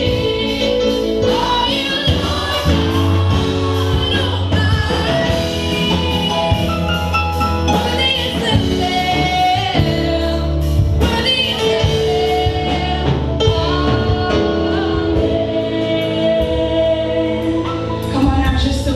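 Live gospel worship song: a group of singers over instrumental accompaniment with a steady bass line.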